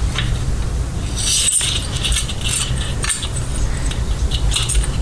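Light metallic clinking and jingling from handling a coil spring and throttle cable against a bicycle's two-stroke engine kit, in short scattered bursts, over a steady low background hum.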